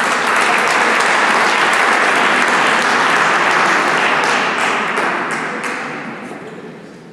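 Audience applauding: a dense patter of many hands clapping, which comes in quickly and fades away over the last couple of seconds.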